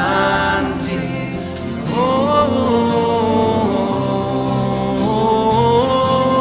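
Devotional mantra song: voices hold long sung notes that rise in pitch twice, over sustained instrumental backing.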